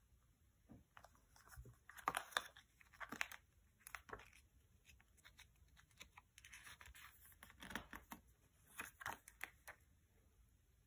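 Faint paper rustling as a CD booklet is handled, its pages turned over and pressed flat, in several short bursts with light taps in between.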